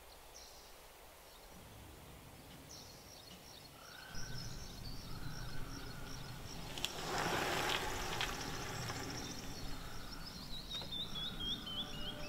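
Outdoor ambience with small birds chirping, ending in a quick descending run of chirps, over a low rumble that grows louder about four seconds in. A short rush of noise comes a little past the middle.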